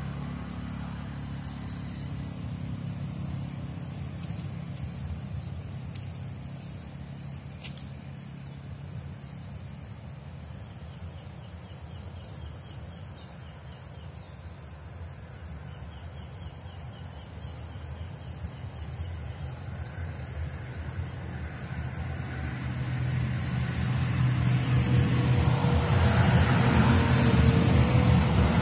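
Steady high insect drone over a low engine rumble that grows louder over the last several seconds.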